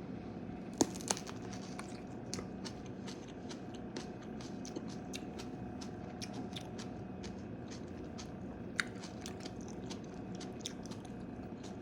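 Close-up chewing of a kiwi eaten with its fuzzy skin on: many small irregular crunchy clicks and squishes of biting and chewing. A steady faint hum runs underneath.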